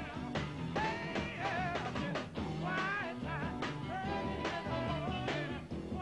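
Mid-1960s rhythm-and-blues band playing, with a singer's voice wavering over a steady drum beat.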